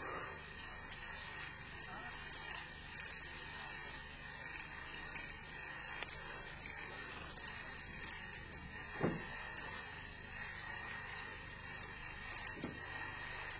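Insects chirping in a steady, regularly repeating pulse. A short, dull thump comes about nine seconds in, and a fainter one near the end.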